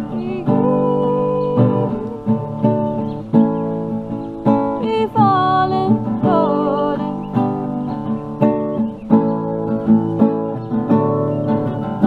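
Nylon-string classical guitar strummed in repeated chords, with a woman's voice singing along briefly about five seconds in.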